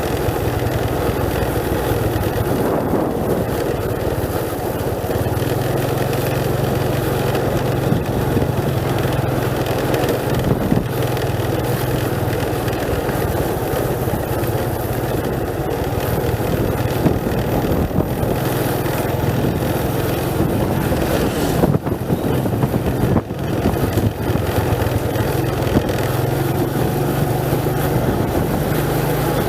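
Motor vehicle engine running steadily while driving, with constant wind and road noise. The engine note shifts up and down a few times as speed changes, with occasional knocks from the road.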